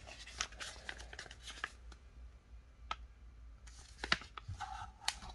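Paper rustling and crinkling as a folded owner's manual is pulled out and handled, with scattered light clicks and taps.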